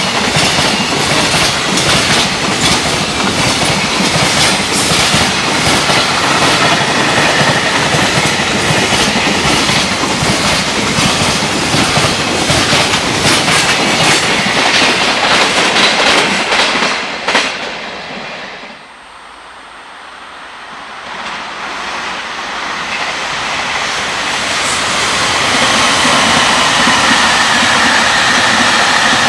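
Freight train passing at speed: the wheels clatter over rail joints under a continuous roar of container cars, then the sound drops away abruptly about two-thirds in. A second train then approaches and steadily grows louder, with a faint whine near the end.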